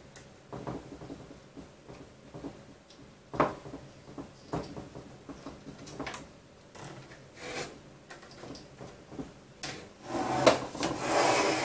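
Handling noise of a rubber timing belt being fed around a stepper motor's pulley and back through a 3D printer's plastic X-axis parts: scattered light clicks and taps, then a longer, louder rubbing and scraping near the end.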